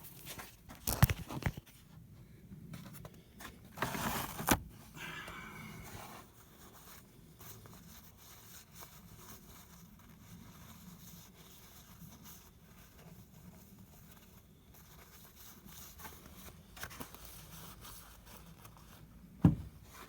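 Hands handling and wiping clean a greasy oil-change part: rustling and scraping with a few sharp knocks, the loudest near the start and one just before the end.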